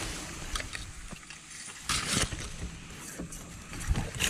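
Scuffing, rustling and a few soft knocks of hikers moving a mountain bike up a dirt trail on foot, with a short hissing burst about two seconds in.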